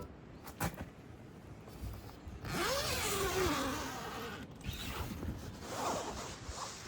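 A zipper pulled in one long rasp of about two seconds, its pitch rising and falling with the pull, then a shorter rasp near the end, after a few faint clicks.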